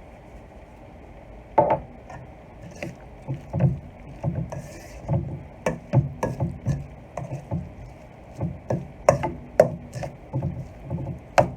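Irregular clicks and knocks of kitchen utensils against a bowl or dish, some with a dull thud, starting about a second and a half in.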